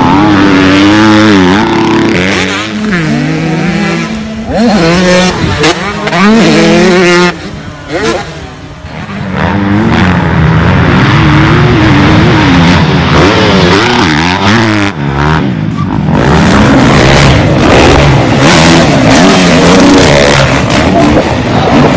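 Dirt bike engines revving hard, their pitch climbing and dropping again and again with throttle and gear changes, with a brief lull about eight seconds in.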